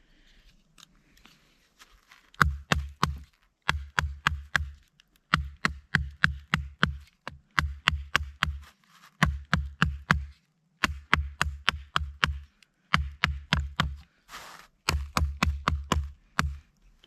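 Small folding saw blade of a pocket multitool sawing a dead, frozen branch. Quick back-and-forth strokes, each a sharp click with a dull thump, come in runs of about four to eight with short pauses between them.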